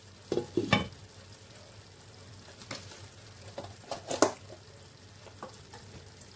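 Glass lid set down onto a frying pan with a few clattering knocks about half a second in, then jollof rice sizzling gently under the lid, with a few brief sharp crackles.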